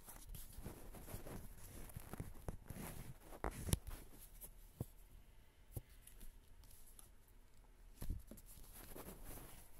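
Handling noise as a CD package is handled: soft rustling with scattered clicks and taps, and one sharper knock a few seconds in.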